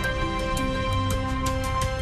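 Documentary background music: long held notes over a bass line, with a steady light percussive tick.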